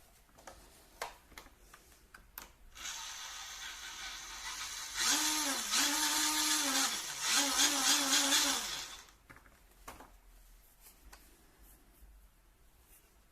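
Small electric drive motors of an RC truck whining as the wheels are run in bursts. The whine starts soft, gets louder, dips in pitch twice and recovers, then stops suddenly, with a few handling clicks before and after.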